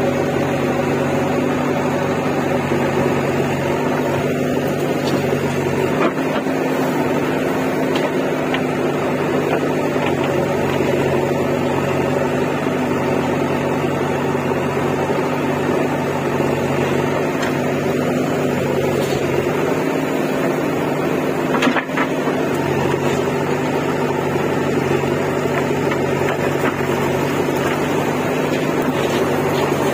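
JCB 3DX backhoe loader's diesel engine running steadily while the backhoe digs, with a couple of brief knocks, one about six seconds in and one a little past twenty seconds.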